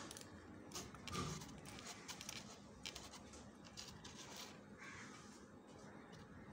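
Faint, scattered clicks and small handling noises from wire leads being moved around a starter motor that is not running, with a few faint bird calls in the background.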